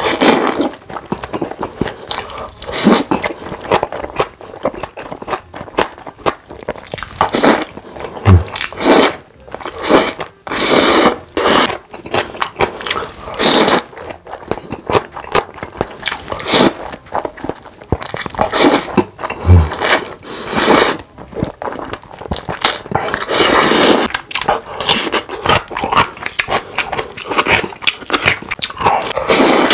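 Close-miked eating: long slurps of black bean noodles, with chewing and crunchy bites of radish kimchi, coming in irregular loud bursts.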